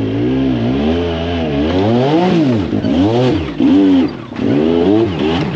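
Side-by-side UTV engine revving, rising and falling in pitch again and again as the throttle is worked in short bursts, about once a second from about two seconds in.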